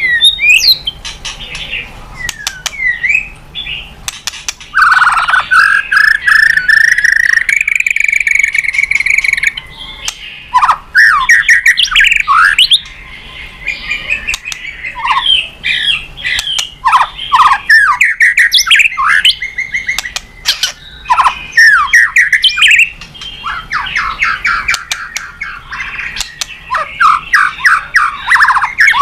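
White-rumped shama (murai batu) singing a long, varied song of whistled glides and rapid runs of short notes, in loud phrases broken by brief pauses.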